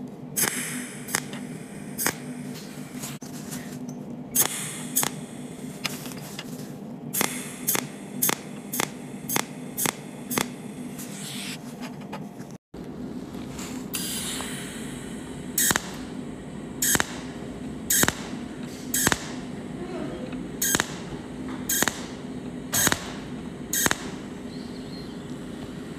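Pulsed cold welding machine firing its tungsten electrode in a series of short, sharp cracks, one every half second to a second, each pulse laying one spot weld that fuses a copper ring to a steel bolt. A steady hum runs underneath.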